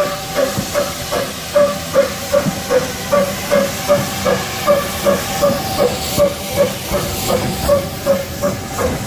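LB&SCR A1X 'Terrier' 0-6-0 tank locomotive working under steam at low speed, an even beat of about two to three exhaust chuffs a second over hissing steam.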